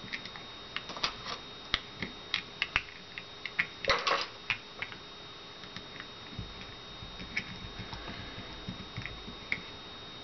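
Small sharp clicks and taps of a green plastic grip panel being pressed and seated onto a Beretta 21A Bobcat pistol frame. There is a brief scuffing rustle about four seconds in.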